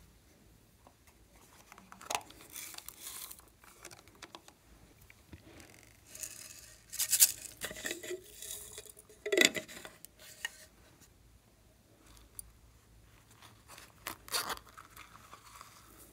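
Hands tearing and crumbling soft, crinkly add-ins, heard as three bouts of short tearing and crunching noises, loudest in the middle.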